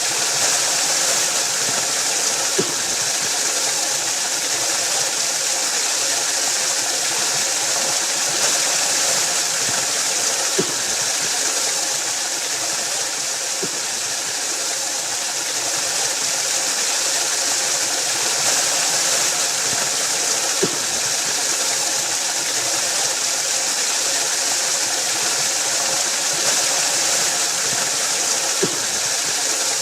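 Waterfall: water falling and rushing in a steady, even roar, with a few faint ticks now and then.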